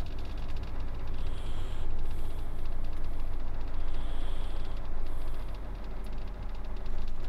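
Steady low engine drone and rumble of a truck, heard from inside the cab, with a light hiss over it.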